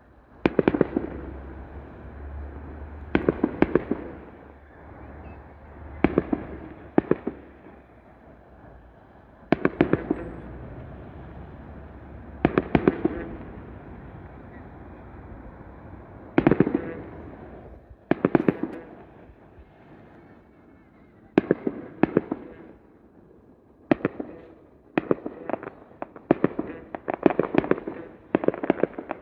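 Aerial fireworks shells bursting, each bang followed by a rolling, fading rumble. The bangs come every two or three seconds, then bunch into a rapid volley over the last few seconds.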